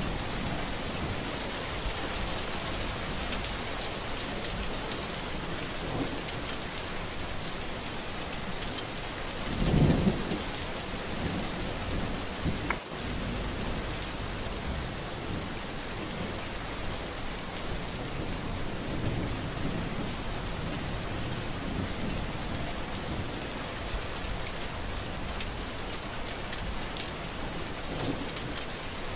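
Steady heavy rain falling, with a low roll of thunder about ten seconds in and fainter low rumbles here and there.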